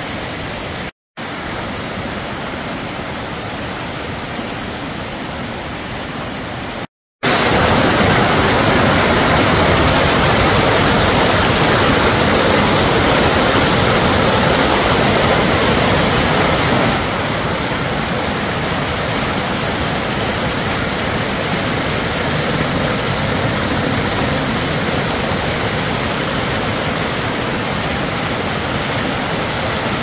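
Mountain stream rushing over rocks and boulders, a steady noise of close white water. It cuts out briefly twice, about a second in and about seven seconds in, and is louder after the second break.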